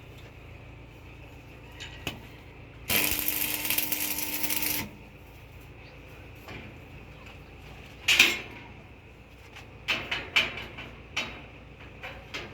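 Metal workshop sounds: a loud, noisy whir lasting about two seconds, starting about three seconds in, then a run of sharp metallic clinks and knocks as metal parts are handled.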